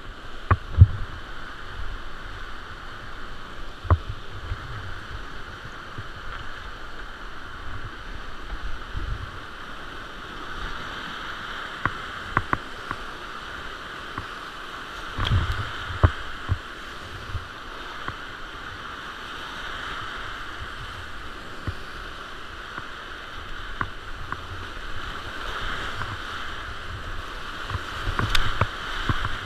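Whitewater rapids rushing steadily around a kayak, with scattered sharp splashes and knocks as paddle and waves strike the boat, a cluster about halfway and another near the end.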